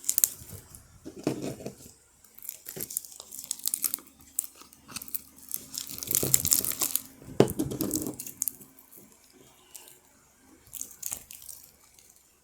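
Sticky butter slime being stretched, squeezed and pulled apart by hand, giving irregular crackling, tearing sounds that come in spells with short quiet gaps, loudest around six to seven seconds in.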